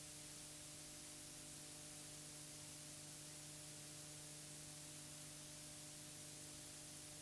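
Steady hiss with a faint low hum and no other sound: the background noise of a blank stretch of an old archive recording.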